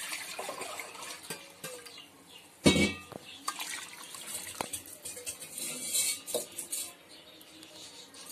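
Metal utensils clattering against a steel cooking pot, with one loud knock a little under three seconds in, while water is poured and splashes into the curry.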